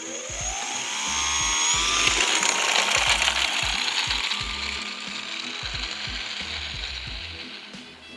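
Electric motor and propeller of a homemade foam RC airplane spooling up to full throttle with a rising whine at launch, loudest as it passes close about three seconds in, then a steady buzz that fades as the plane flies away.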